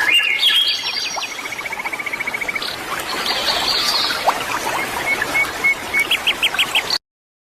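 Garden birds singing and chirping: a fast, even trill, scattered chirps, and near the end a run of five short, sharp notes. The sound cuts off suddenly just before the end.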